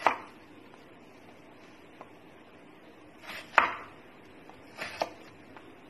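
Kitchen knife chopping an onion on a wooden cutting board: about three separate knife strikes on the board spread over several seconds, the loudest about three and a half seconds in, each with a softer cut just before it.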